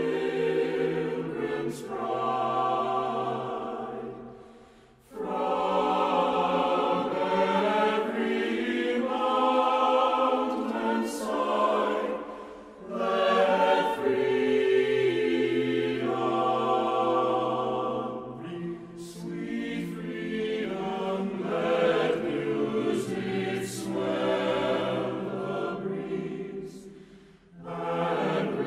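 Choral music: a choir singing long held chords in slow phrases. It fades almost to nothing briefly about five seconds in and again near the end.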